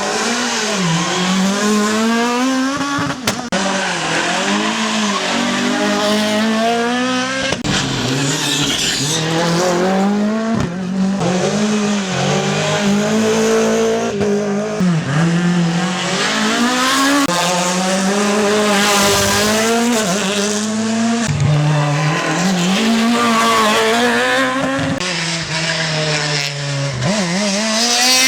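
Rally cars at full attack, one after another. Their engines rev hard and rise and fall in pitch with each gear change and lift through the corners, with tyre squeal as they slide.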